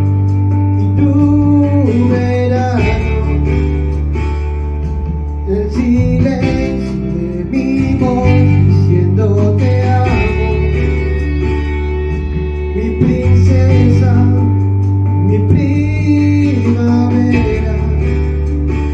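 Music: a love song with a sung voice over guitar and sustained bass notes that change every few seconds.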